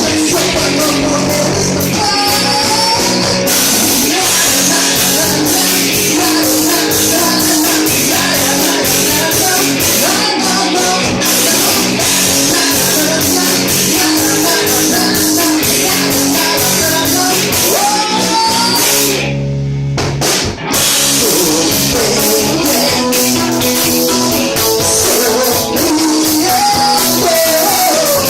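Live rock band playing: drum kit, electric guitar and singing. About two-thirds of the way through, the drums and high end drop out for about a second over a held low chord, then the full band comes back in.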